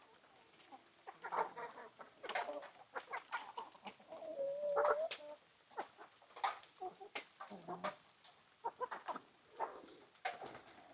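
A flock of chickens, hens and young roosters, clucking and squawking in many short scattered calls, with one longer held call about four seconds in.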